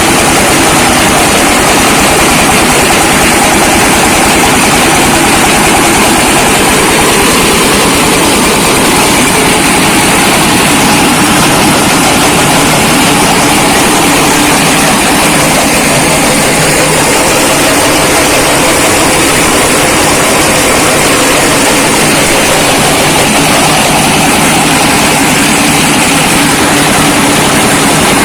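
Small brick-breaking machine running steadily: a loud, continuous mechanical din with a rapid low pulsing throughout.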